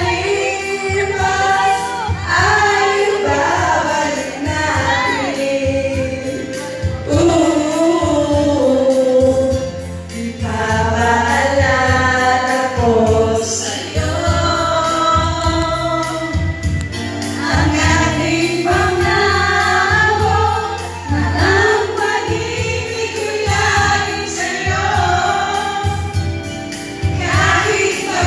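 Several women singing together karaoke-style into handheld microphones over an amplified videoke backing track with a steady beat.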